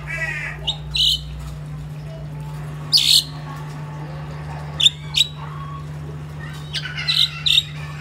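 Crested myna giving short, sharp squawks and chirps, one every second or two, with a quick run of them near the end. A steady low hum runs underneath.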